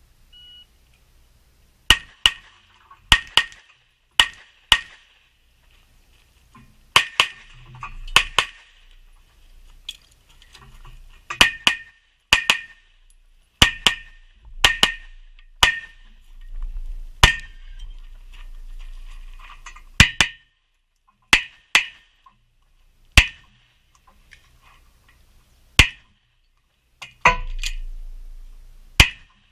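A short electronic beep about half a second in, the shot timer's start signal, followed by about two dozen sharp handgun shots, many in quick pairs, with pauses between strings as the shooter moves between positions in a practical-shooting stage.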